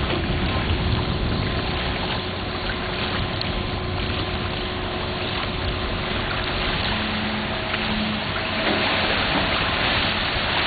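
Steady rush of lake water pouring out through a freshly cut channel in the gravel bar to the sea.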